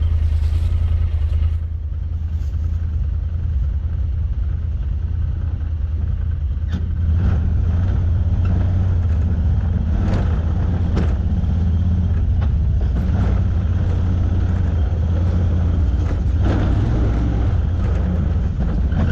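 Side-by-side UTV engine running steadily, easing off a little about two seconds in and picking up again around seven seconds, with a few short knocks in between.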